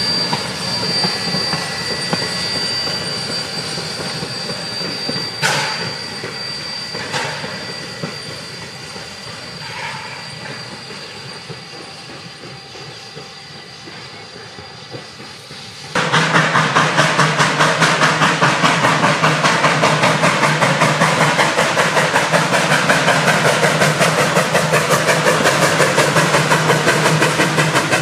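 1877 Rogers K88 steam locomotive and train rolling by with a high, steady wheel squeal and a few sharp clicks, fading away. About halfway through it cuts suddenly to the locomotive working hard close by, with loud, rhythmic exhaust chuffs.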